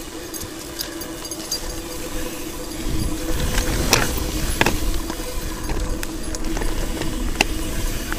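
Mountain bike rolling down a dirt trail: a low rumble of tyres and riding that grows louder about three seconds in, with a faint steady hum and a few sharp knocks from bumps.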